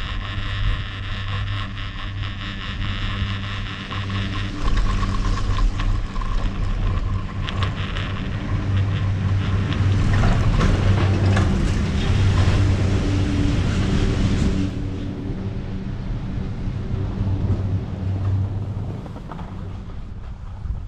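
Chairlift machinery at the top terminal: a steady low hum from the lift, with clicks and clatter as the chair runs through the station, and wind on the microphone. It is loudest in the middle and eases off over the last several seconds.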